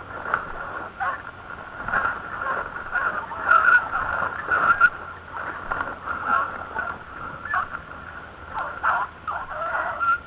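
Brush and branches swishing and scraping against a person and a handheld camera as they push through dense scrub, in uneven bursts with sharp snaps here and there.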